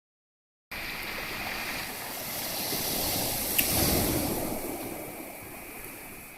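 Gentle waves washing on the shore of a calm sea: one small wave swells and breaks about three seconds in, then the wash fades. A light click sounds in the middle of the wave.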